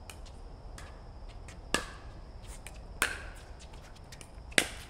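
Pickleball paddles hitting the hollow plastic ball, three sharp pops in a rally about a second and a half apart, with fainter pops from play on nearby courts.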